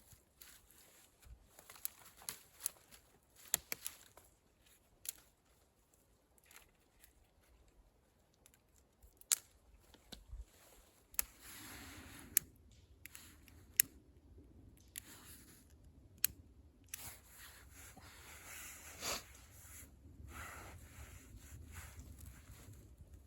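Camping kit and packaging being handled: scattered sharp clicks and taps, with stretches of rustling and crinkling.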